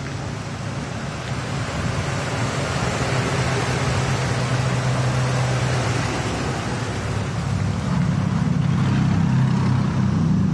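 Ford Super Duty truck engine idling with the hood open, a steady low hum under a rushing hiss; the hum grows stronger near the end.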